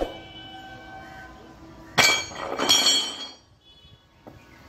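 Two loud metallic clangs with a brief ring, about two seconds in and again just over half a second later, as a railway track worker's hammer and steel tool are set down on the platform.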